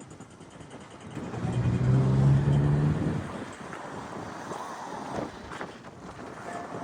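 A motor vehicle's engine passing close by, swelling to a loud, even drone for about two seconds and then fading, over steady outdoor background noise.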